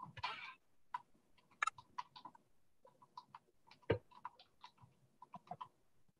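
Faint, irregular clicks and taps, some in quick runs of about four a second, with a brief rustle near the start and one louder knock about four seconds in.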